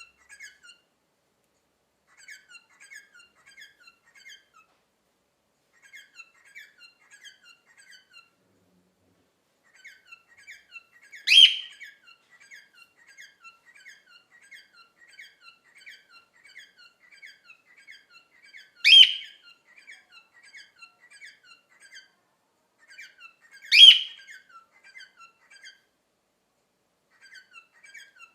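Cockatiel chirping in quick runs of short high notes, broken by three loud, sharp calls several seconds apart: the cockatiel's flock call.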